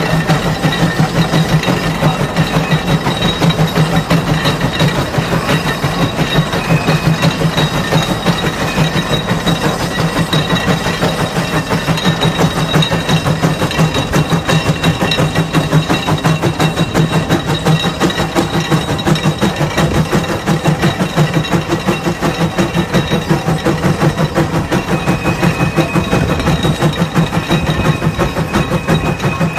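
CASE steam traction engine exhaust chuffing in a fast, even rhythm as it hauls a plough under load.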